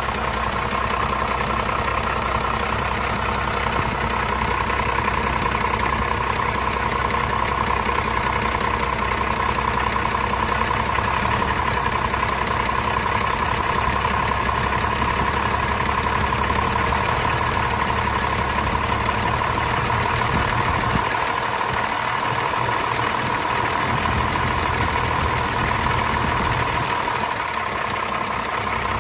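1989 Dodge Ram's 12-valve Cummins 5.9 L inline-six turbo diesel idling steadily under an open hood, still warming up from a cold start, with a steady high whine over the engine note.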